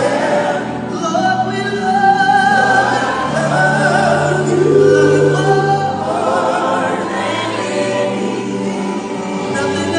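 Gospel choir singing over sustained background music, with wavering held notes.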